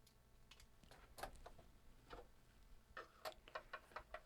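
Faint light clicks and ticks, a few scattered about a second in and a quicker run of small ticks near the end, as a screwdriver backs out a screw from a Commodore 1541-II floppy drive's case.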